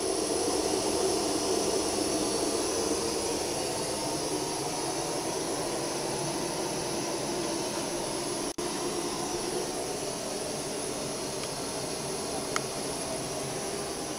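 Portable gas-canister camping stove burner running under a cooking pot: a steady roaring hiss, with a brief break about eight and a half seconds in.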